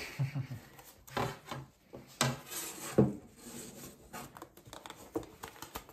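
A round wooden board and a fabric cover being handled: a few light knocks of wood on a hard surface about a second apart, with cloth rubbing as the elasticated cover is fitted.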